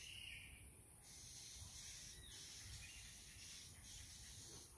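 Near silence: faint outdoor background hiss.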